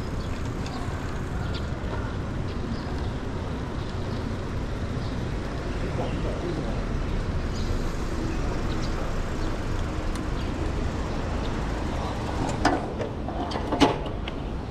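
Steady low rumble of wind and street traffic while riding a YouBike rental bicycle. Near the end come two sharp metallic clunks about a second apart as the bike is pushed into its docking stand.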